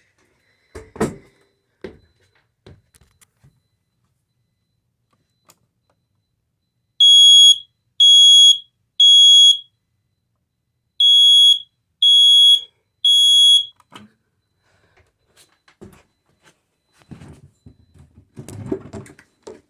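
Smoke detector's piezo horn sounding when its test button is pressed: two groups of three loud, high beeps with a pause between, the standard temporal-three evacuation pattern. Faint knocks and handling noise before and after.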